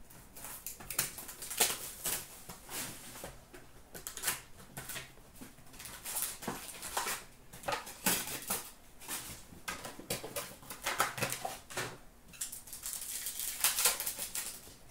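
Hands opening a box of hockey trading cards and its packs: irregular crinkling and rustling of the packaging, with many short sharp clicks.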